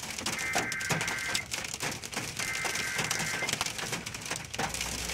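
Rain hitting the truck as a dense crackle of small ticks. A two-pitch electronic beep sounds twice, each about a second long.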